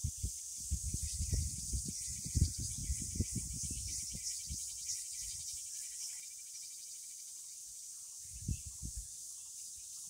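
Steady high-pitched chorus of forest insects, with irregular low thumps that are dense through the first six seconds and come again briefly about eight and a half seconds in.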